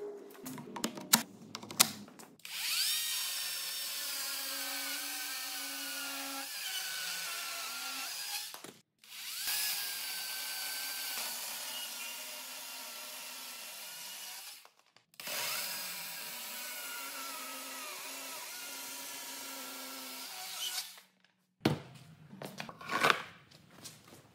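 Einhell 36-volt cordless chainsaw with a 14-inch bar cutting through a timber beam in three runs of about six seconds each, separated by short pauses. The electric motor and chain whine dips and wavers in pitch as the chain bites into the wood. A few clicks come before the first run, and a few loud knocks near the end.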